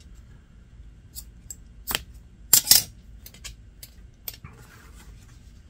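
Scissors snipping thread in a series of short, sharp clicks, the loudest a quick double snip a little past halfway, as the end of a hand-stitched leather seam is knotted off and trimmed.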